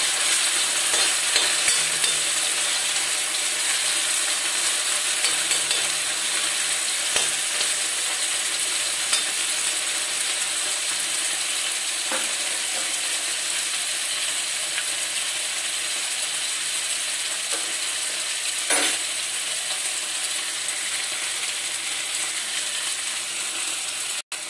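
Chopped onions and tomatoes sizzling steadily in hot oil in a kadhai. A spatula scrapes and clicks against the pan for the first couple of seconds, then the pan is left to cook, with an occasional knock, the clearest about 19 seconds in.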